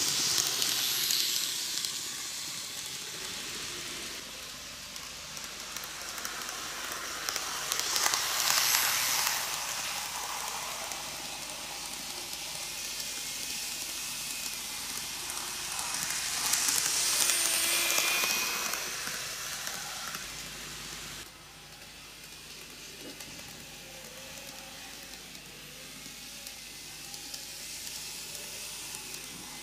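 N gauge model trains, a Shizuoka Railway A3000 and a 1000 series, running on sectional track: a steady rolling hiss and rattle of the small wheels on the rails. It swells three times as the trains pass near, then drops to a fainter steady running sound about two-thirds of the way through.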